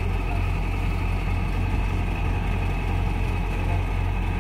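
Kubota DC-93 combine harvester's diesel engine running steadily at idle, a low, even hum, the machine standing mired in mud.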